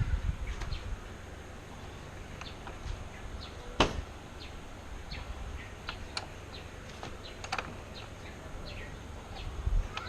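Birds chirping in the background in short, scattered calls, with one sharp click about four seconds in.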